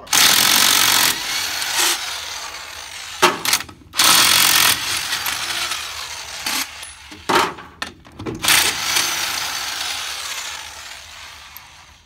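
Corded electric impact wrench backing out the wedge bolts on a mobile home wheel's spoke hub. There are three long runs of rapid hammering, each loudest at the start and tapering off, with short knocks in the gaps between them.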